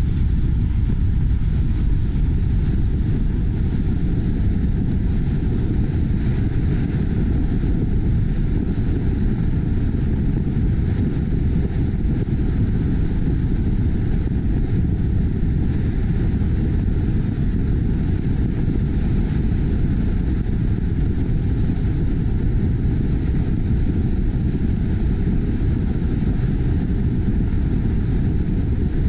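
Steady, low rush of road and wind noise from a car driving at speed, with no break or change.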